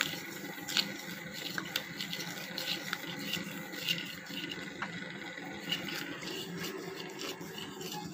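Wooden spatula stirring and scraping dry sugar in a dark metal kadai as it melts for caramel syrup without water: a gritty scraping over a steady hiss, with sharp clicks of the spatula against the pan about once a second.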